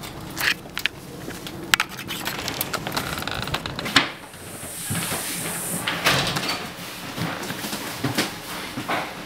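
A door being opened, with irregular knocks and scuffs of people moving through the doorway; the sharpest knock comes about four seconds in.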